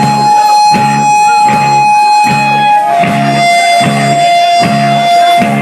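Anarcho-punk band playing live and loud: an electric guitar holds a long high note that steps down in pitch about three seconds in, over an even pulse of bass and drums about one and a half beats a second.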